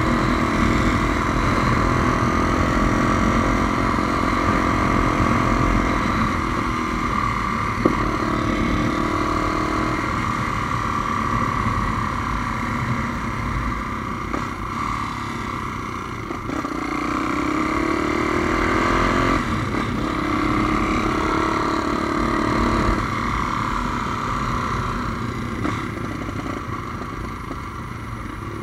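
Single-cylinder engine of a Honda Tornado motorcycle bored out to 350 cc, running under way, its pitch rising and falling with throttle and gear changes. A single sharp click about eight seconds in.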